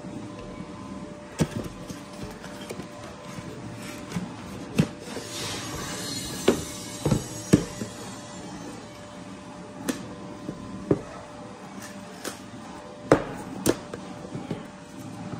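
Irregular knocks and taps of a box and its parts being handled and set down during an unboxing, with a brief rustle about five seconds in. A steady faint hum runs underneath.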